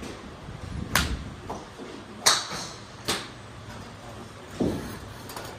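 Golf clubs striking balls: sharp clicks about one, two and three seconds in, the one near two seconds the loudest, and a duller knock near five seconds.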